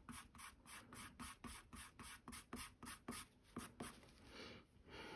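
Prismacolor colorless blender pencil stroking back and forth on toned mixed-media paper, burnishing colored-pencil fur to smooth it. It is a faint, quick run of scratchy strokes, about five a second, easing into a softer, steadier rub near the end.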